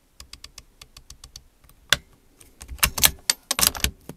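Clicks and rattles of a Tikka T1X .22LR bolt-action rifle being handled between shots, as the bolt is worked and a fresh cartridge is loaded. A run of small clicks comes first, then one sharper click about two seconds in, and a cluster of louder clicks near the end.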